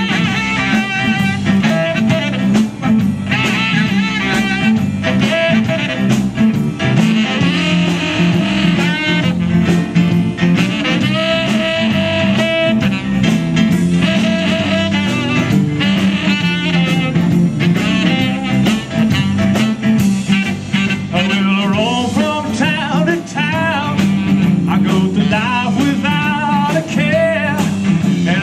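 Background music with a steady beat and a wavering melodic lead line.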